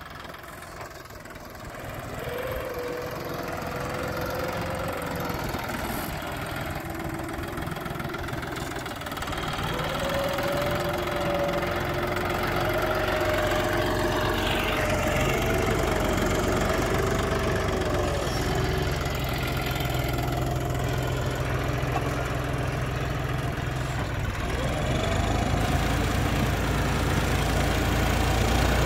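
John Deere 5050E tractor's three-cylinder diesel engine running steadily while pulling a cassava planter, getting louder as the tractor comes closer.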